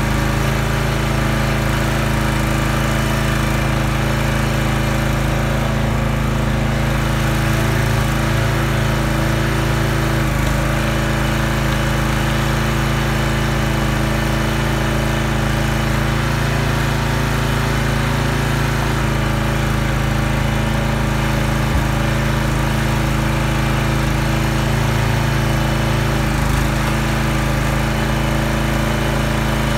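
Small gas engine of a Huskee hydraulic log splitter running steadily, its note shifting slightly a few times.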